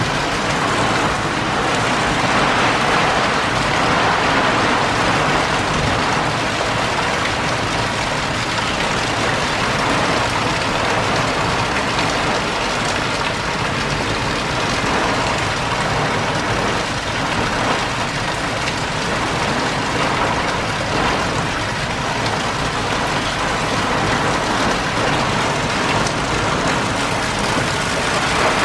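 Heavy rain falling in a dense, steady hiss.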